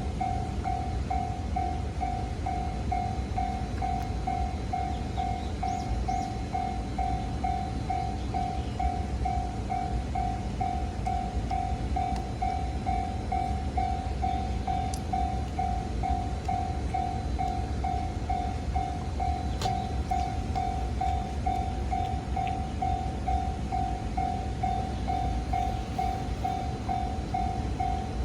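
Japanese level-crossing electronic warning bell ringing, one ding repeated at an even rhythm, over a steady low rumble.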